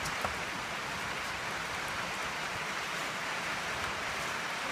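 Steady rain-like hiss, with a light click about a quarter second in and a few fainter ticks as cardboard firework tubes are handled.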